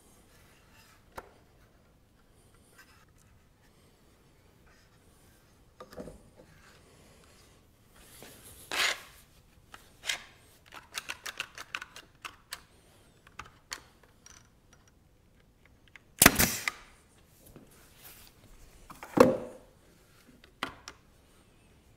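Workbench handling while one-handed bar clamps are set on a small wooden rocker: scattered knocks, a run of rapid ratchet clicks from a clamp being squeezed tight about ten seconds in, and two loud sharp bangs a few seconds apart later on.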